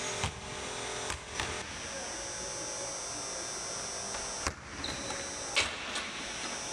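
A basketball bouncing a few times on a gym's hardwood floor, then a hard bounce as the ball is thrown up for a self-alley-oop, and about a second later a dunk: the ball slams through and the metal rim clangs and rings. A steady hum underlies it all.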